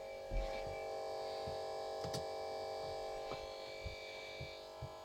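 A steady electrical buzzing hum made of several held tones, with a few light knocks and clicks.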